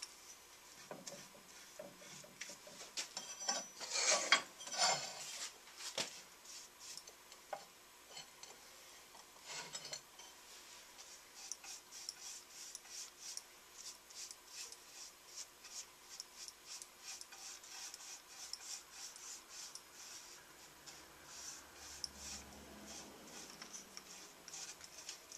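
Hand rubbing strokes scratching over the wood of a small juniper (larch) toolbox, loudest and densest a few seconds in, with a light knock, then settling into quick, even strokes.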